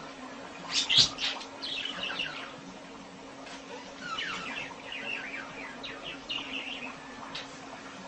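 Budgerigar chattering in quick, high chirps: a loud spell about a second in, then a run of short falling chirps from about four to seven seconds.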